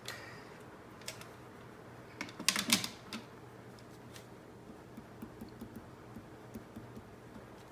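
Light clicks and taps of small objects handled on a tabletop: a quick cluster of sharp clicks about two and a half seconds in, then faint scattered ticks over a low steady hum.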